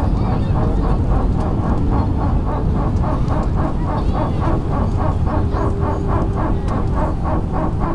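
Cabin noise of an Airbus A320-family airliner on its landing rollout, spoilers raised: a loud, steady rumble of engines and wheels on the runway, with a fast, even rattle of about four knocks a second.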